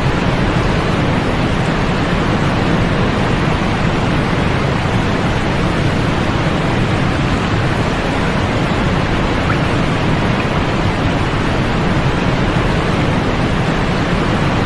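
Continuous white noise for sleep: a steady, even hiss with no change and no separate events, its weight in the low and middle range and thinning toward the highs.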